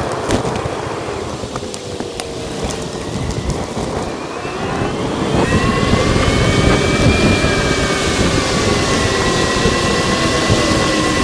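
Wind rumble and road noise from a bicycle ride, sped up fourfold. About five and a half seconds in, a whining tone with several overtones joins in over the rumble, drifting slightly in pitch, and the sound grows louder.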